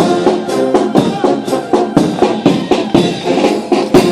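Band music with a steady drum beat, with sustained pitched notes over it.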